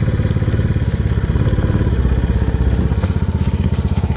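Four-wheeler (ATV) engine running steadily under way, with a rapid, even firing pulse.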